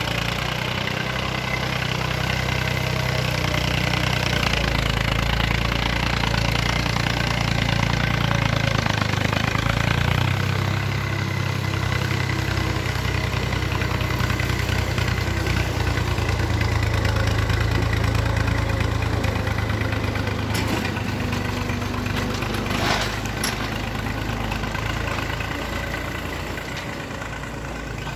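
Excavator's diesel engine running steadily, swelling and easing as it works, with two sharp knocks about three quarters of the way through.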